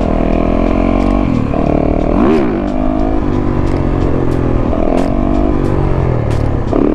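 Dirt bike engine running at a steady speed with small changes in revs and a quick rise and fall in revs about two seconds in.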